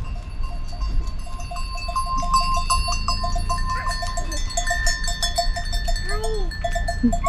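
Bells of a flock of sheep and goats tinkling and clanking without pause, with a few bleats near the end, over a low rumble.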